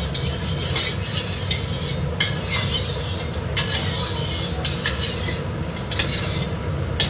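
Metal wok spatula scraping and swirling around the inside of a steel wok as the oil heats, making a rasping metal-on-metal scrape in irregular strokes over a steady low hum.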